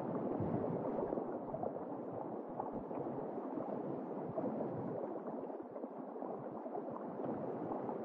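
Muffled underwater water ambience: a steady, dull bubbling wash with faint crackle and no high end.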